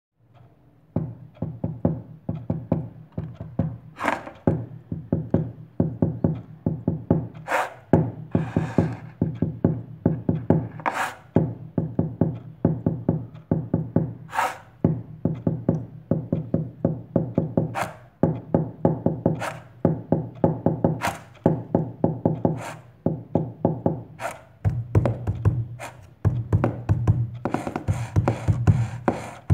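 Hands drumming on a wooden tabletop, books and a wristwatch: a steady groove of quick light finger taps with a sharp accent hit about every three and a half seconds. It starts about a second in, and near the end the playing gets denser and brighter.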